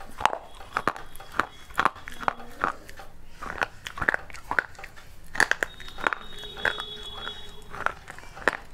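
Close-up mouth sounds of a person chewing pieces of a baked clay pot: a run of sharp, irregular crunches.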